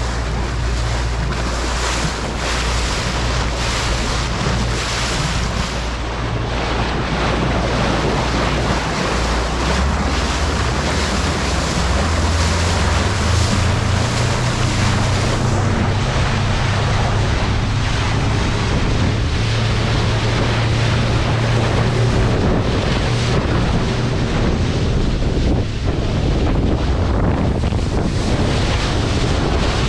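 Jeanneau Leader 6.5 motorboat under way: wind buffeting the microphone over the rush of water along the hull, with the engine's low drone underneath. The engine note rises about ten seconds in as the boat speeds up.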